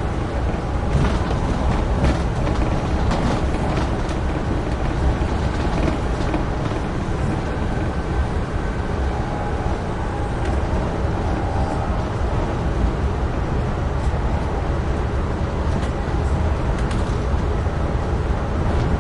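Amtrak Northeast Regional passenger train running at speed: a steady rumble of wheels on rail, with occasional brief clatters.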